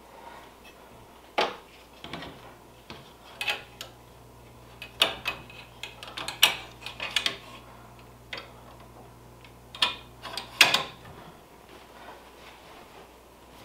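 Irregular clicks and clacks as a magnetic embroidery hoop's metal mounting brackets are slid onto and seated in an embroidery machine's carriage, with the shirt fabric being handled. A faint low steady hum runs under it from about a second in until near the end.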